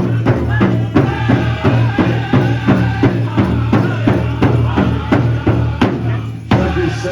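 Powwow drum group beating a big drum in a steady fast beat, about three or four strikes a second, with the singers' voices over it. The beat thins briefly near the end, then a hard strike brings it back.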